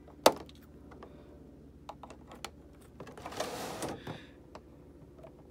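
Clicks and crackles of a clear plastic packaging tray being handled while the figure is cut loose from it, with one sharp click just after the start and a short rustle about three and a half seconds in. A steady low hum runs underneath.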